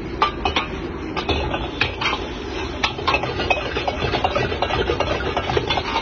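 Metal ladle clanking and scraping against a wok as fried rice is tossed and stirred, the strokes coming quicker from about three seconds in, over the steady low rush of the gas wok burner.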